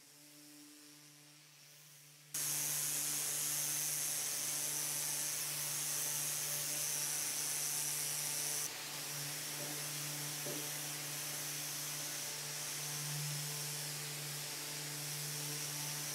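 Surfprep pad sander with a dust-extractor hose attached, running steadily as it scuff-sands a finished dresser surface with a fine pad: a steady hiss over a low hum. It starts suddenly about two seconds in, and its high hiss drops a little about nine seconds in.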